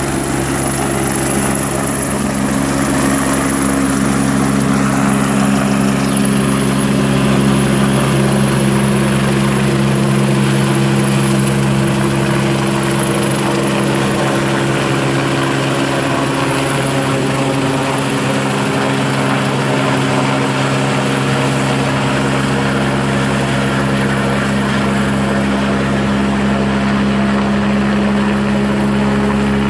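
Agusta A109K2 twin-turbine helicopter climbing away overhead after lift-off: a loud, steady rotor and engine sound with a thin high turbine whine that fades toward the end.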